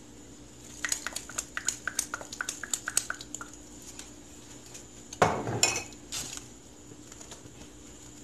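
A metal utensil clinking against a cooking pot: a quick run of light clinks for a couple of seconds, then a louder clatter about five seconds in.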